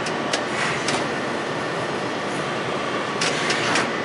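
Hydraulic system of a 1997 Adira QHA-6320 70-ton upacting press brake running steadily with a faint whine as the machine cycles. Brief clicking, hissing bursts come about half a second in and again near the end.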